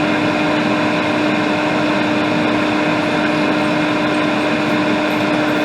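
Electric fan running steadily, an even whir with a constant low hum.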